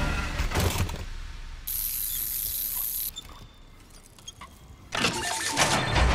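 Sound effects for a robotic mechanical arm: ratcheting clicks and whirring mechanisms as it switches attachments. There is a steady hiss of about a second and a half in the middle and a louder mechanical burst near the end.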